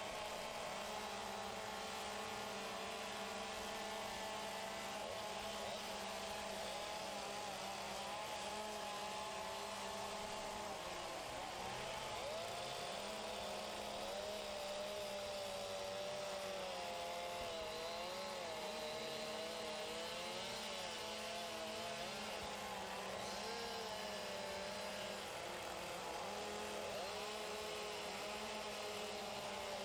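Several gasoline chainsaws running at once, their engine pitch rising and falling as the operators throttle and cut into wood.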